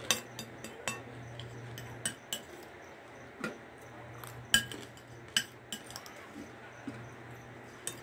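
Metal spoon clinking and scraping against a glass bowl of dry farofa, in sharp separate clicks, the loudest about four and a half seconds in.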